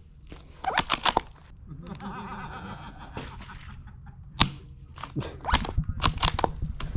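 Savage Mark II FV-SR .22 LR bolt-action rifle, suppressed with a Sig Sauer SRD22X and firing subsonic rounds. One quiet, sharp shot comes about four and a half seconds in, with quick runs of clicks before and after it from the bolt being worked.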